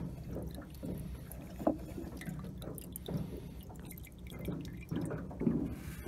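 Quiet handling sounds of a rag being dipped in a tin of timber oil and wiped along wooden cockpit trim: soft rustles and a few light knocks over a steady low rumble.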